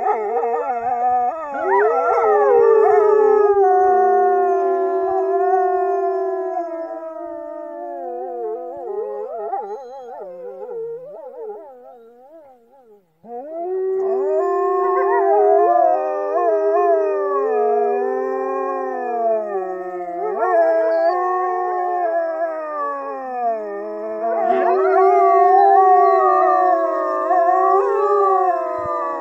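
Two grey wolves howling together, their long gliding howls overlapping in a chorus. The howling fades out about twelve seconds in, breaks off briefly, then starts again and carries on.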